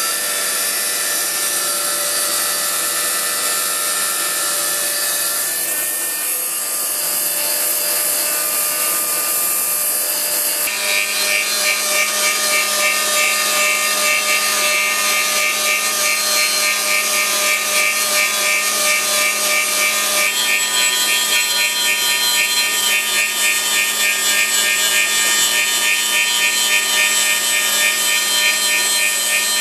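Handheld electric angle grinder cutting and throwing sparks, a continuous loud grinding noise. It changes abruptly about eleven seconds in as a new cut starts, after which a steady low hum and a fast pulsing run under it.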